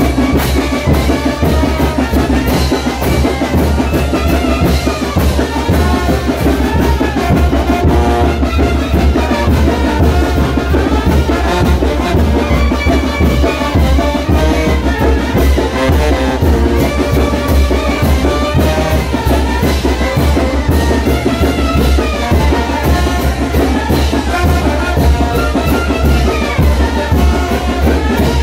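Brass band playing music for the chinelo dance (brinco del chinelo), trumpets over a steady drum beat that runs without a break.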